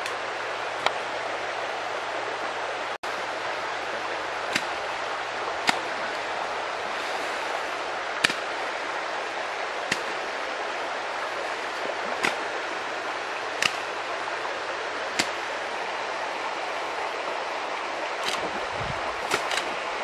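Steady rushing of a fast-flowing muddy stream, with a sharp click every second or two and a brief gap in the sound about three seconds in.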